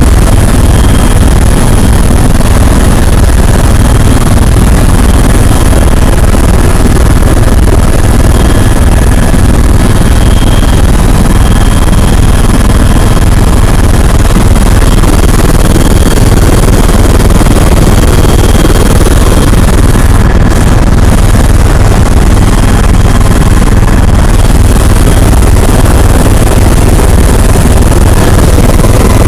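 Tour helicopter running steadily in flight, very loud, with most of its sound in a deep, even low beat from the rotor and engine.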